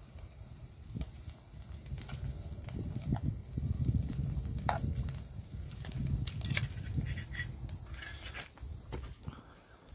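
A metal spoon stirring frying chopped onions in a pan, giving scattered clinks and scrapes against the pan, over a low rumble that swells in the middle.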